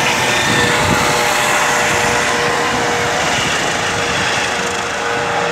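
Helicopter climbing away overhead after lifting off: a steady, loud rotor and engine noise with a thin whine held on one pitch, easing slightly towards the end.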